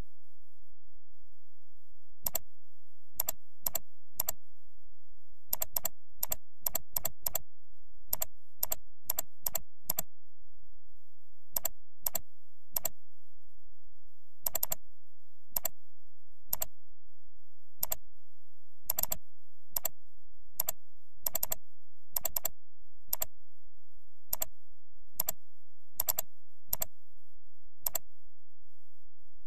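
Computer mouse clicks, irregularly spaced, some in quick pairs like double-clicks.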